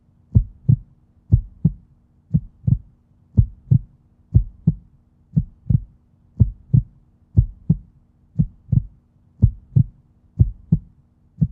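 Heartbeat sound effect: paired low thumps, a 'lub-dub' about once a second, over a faint steady low hum.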